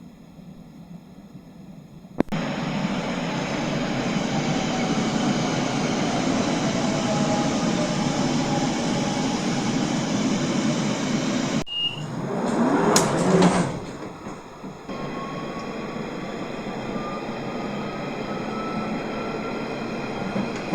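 London Underground Central line 1992 Stock tube train running: after a quiet first two seconds the train noise comes in suddenly, with a louder rushing burst about twelve seconds in, then a motor whine rising slowly in pitch as the train gathers speed.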